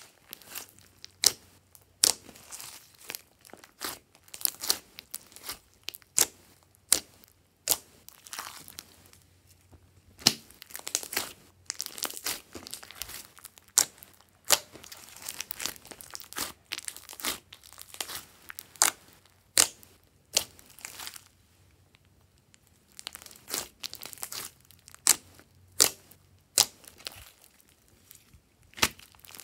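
Hands squishing, pressing and stretching a large mass of slime with small foam beads in it, giving irregular sticky pops, clicks and crackles in quick clusters.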